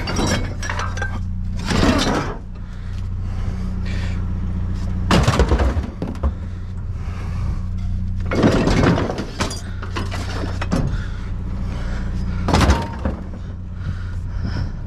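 Junk being moved around and dropped in a dumpster: four loud clanks and thuds with some ringing, over the steady hum of an idling engine.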